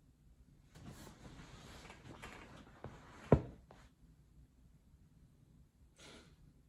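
Rustling and handling noises in a small room, with one sharp knock about three seconds in and a short rustle near the end.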